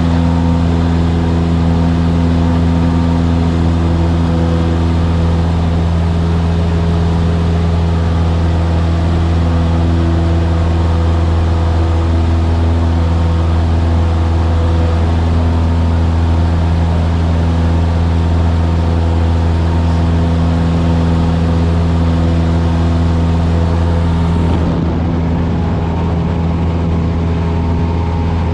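Engine and propeller of a Cessna single-engine light aircraft droning steadily in cruise, heard from inside the cockpit. About 25 s in the sound drops slightly in level.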